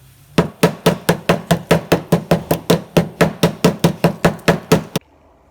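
A rapid, evenly spaced series of sharp knocks, about four or five a second, with a short low ring on each, cutting off abruptly about five seconds in.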